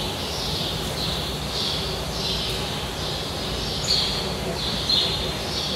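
A bird chirping over and over, a short high call about once or twice a second, over a steady background noise.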